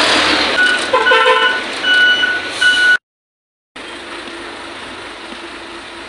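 UD Trucks CWE 280 concrete mixer truck running loud, its reversing alarm beeping over the engine about every half second. After a brief cut it gives way to a quieter, steady running noise.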